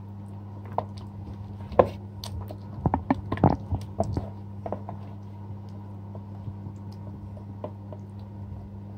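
Wet squelching of hands kneading a thick peri peri marinade into raw chicken pieces in a bowl. The squelches come in scattered bursts, busiest in the first half, with a sharp click about two seconds in. A steady low hum runs underneath.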